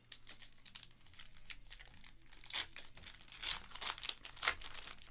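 Foil pack of baseball cards being crinkled and torn open by hand: a run of crackly crinkles and tearing, louder in the second half.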